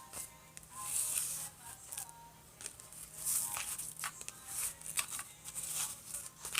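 Clear-glue slime with sand in it being mixed and stretched by hand, giving irregular sticky, crackling squishes and small tearing sounds.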